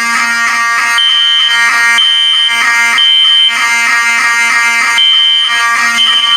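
Fire alarm horns sounding together while the system is in alarm: a steady, buzzy blare. Over it one horn pulses in the temporal-three evacuation pattern, three half-second blasts, a pause of about a second and a half, then three more.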